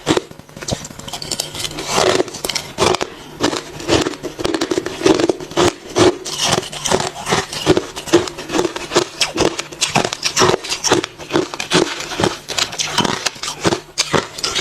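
Close-up chewing of hard refrozen crushed ice: a steady run of loud, sharp crunches, about two to four a second.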